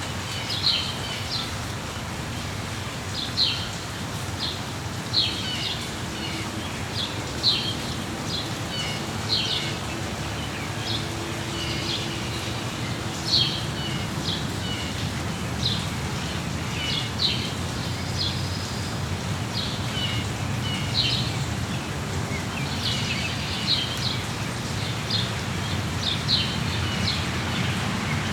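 Small songbirds chirping over steady rain: short, high chirps come one or two a second above an even hiss of falling rain.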